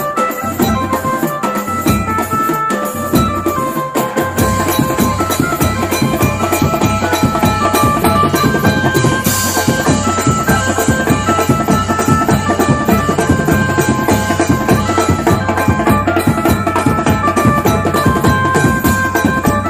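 Music with a fast, steady drum beat under a melody line. The bass drums fill in about four seconds in.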